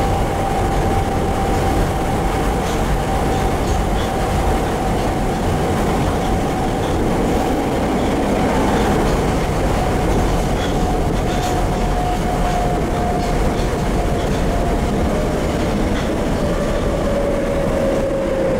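Interior running noise of a Tokyo Metro 02 series subway car with Toshiba IGBT-VVVF traction equipment: a steady rumble of wheels on rail, with a traction motor whine that slowly falls in pitch. A few faint clicks are also heard.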